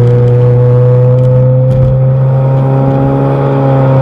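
The 1.5-litre turbocharged four-cylinder of a 2019 Honda Accord Sport, with an aftermarket downpipe and front pipe and no resonator or muffler, heard from inside the closed cabin. The exhaust note is loud and steady, the revs held at almost one pitch while the car pulls in normal drive mode.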